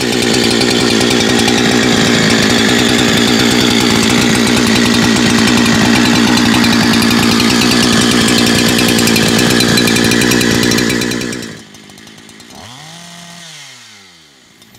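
Neotech NH872 chainsaw, a Husqvarna 372 clone with modified ignition timing, running steadily at full throttle through a cut in wood. About eleven and a half seconds in it drops away, and fainter sounds with gliding tones follow.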